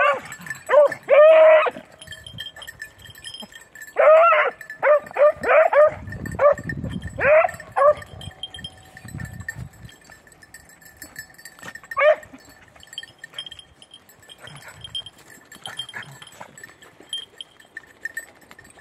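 Beagles baying on hare scent in short, pitch-bending calls: a cluster right at the start, a run of about six bays a few seconds in, and one more near the middle, then only faint calls. A small bell tinkles faintly throughout.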